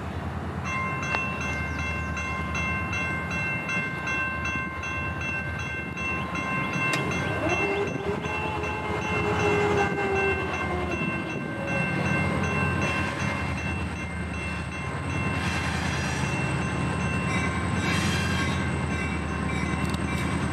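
A pair of four-axle EMD diesel locomotives approaching while climbing a moderate grade, their engines a steady low rumble. Over them sits a steady high ringing of several tones that stops about three-quarters of the way through.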